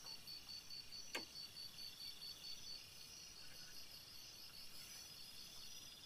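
Night insects, crickets among them, chirping in a steady, rapidly pulsing high chorus, with a single short click about a second in.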